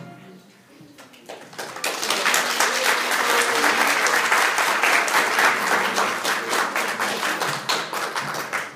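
Audience applause: many hands clapping fast, building about a second in and dying away near the end.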